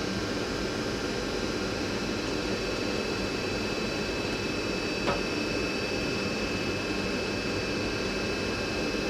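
Steady mechanical hum, like a fan or heater running, holding several fixed tones, with a single sharp click about halfway through.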